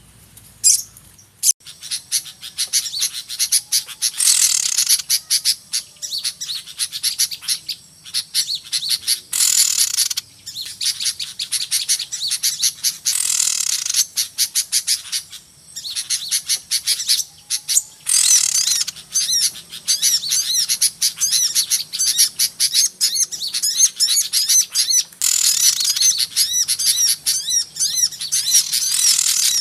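Lure-call recording of many small birds chirping and twittering at once in a dense, noisy chatter, swelling louder every few seconds.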